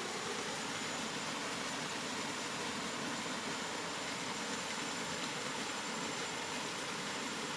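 Steady rain, a continuous even hiss with no single drops standing out, and a faint thin high tone over it.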